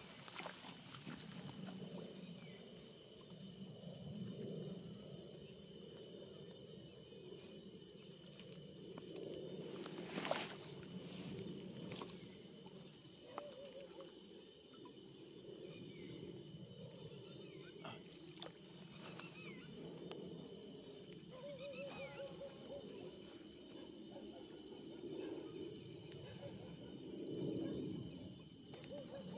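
Outdoor chorus of insects trilling on steady high pitches, with frogs giving short calls now and then. A single sharp click comes about ten seconds in.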